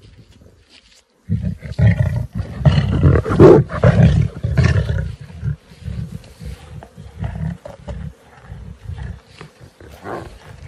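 Lion roaring: a deep, loud run of calls starting over a second in, trailing off into a series of shorter, weaker grunts.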